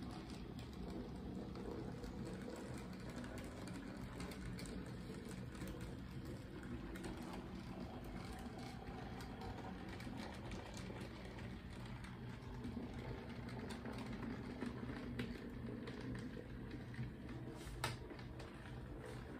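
HO scale model train running on the layout: a small motor and gear whir with scattered light clicking, and a sharper click near the end.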